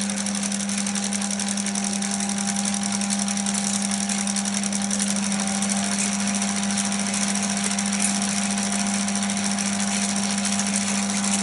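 Pathescope 200B 9.5mm film projector running on its repaired motor, now fitted with new brushes and driven through a modern speed controller. Its mechanism makes a fast, even mechanical chatter over a steady low buzz.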